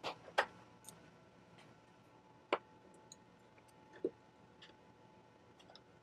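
Sparse small clicks and taps, about seven in all, the loudest near the start and around two and a half and four seconds in: small metal screws and hand tools being set down on a wooden work table.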